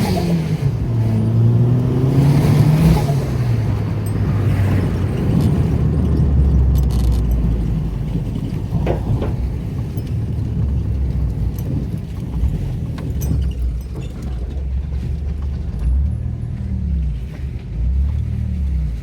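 Turbocharged Nissan SR20DET engine under hard acceleration: the revs climb, drop at a shift, climb again and fall off within the first three seconds, with a hiss of the blow-off valve as the throttle closes. The engine then settles to a steady low rumble at low revs.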